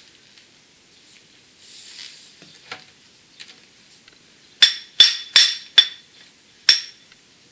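Old pneumatic demolition hammer being handled, not running: five sharp metallic clinks with a brief high ring, four in quick succession about a second apart and a fifth after a short pause.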